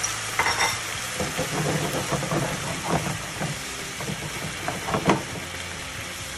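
Sauce sizzling and simmering in a nonstick frying pan while a wooden spatula stirs and scrapes against the pan in a run of short strokes, with one sharper knock about five seconds in.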